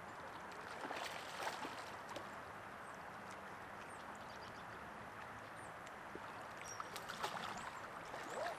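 Creek water flowing steadily, with a few brief clicks and knocks about a second in and again near the end.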